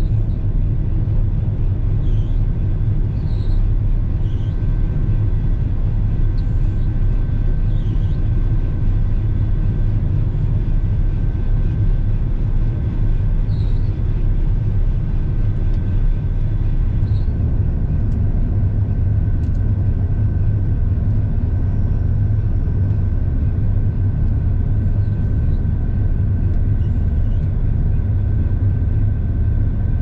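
Claas Lexion combine harvester running steadily while harvesting: a deep engine drone with a steady high whine over it.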